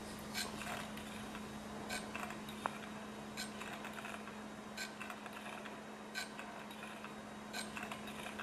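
Low-temperature gamma-type Stirling engine of metal and glass running slowly on a cup of hot water, clicking once about every second and a half as the flywheel turns. The owner hears a little too much friction in it and guesses something is dragging.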